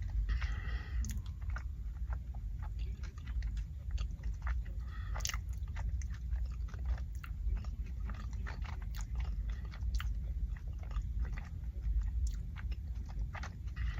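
A person chewing food close to the microphone, with many small wet mouth clicks and a few brief smacking sounds, over a steady low hum.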